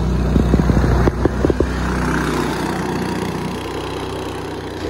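Long-tail mud motor on a small aluminium jon boat running at speed as the boat passes close by, with the hiss of spray and wind. The motor sound falls away a little after about three and a half seconds.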